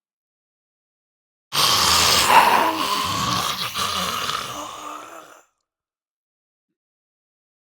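Designed zombie voice sound effect: one distorted, layered creature vocal of about four seconds that starts suddenly about a second and a half in and fades away.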